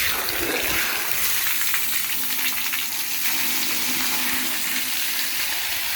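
Steady rush of water gushing out as a large storage tank is drained.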